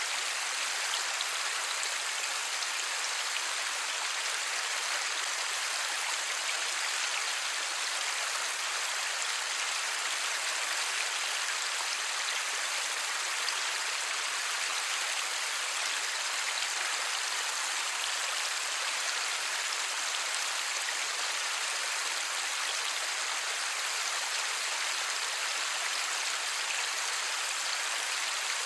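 Light rain falling steadily, an even hiss with no thunder.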